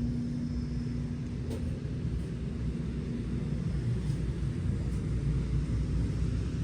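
Steady low background noise with a steady hum that fades out about halfway through, and a few faint ticks.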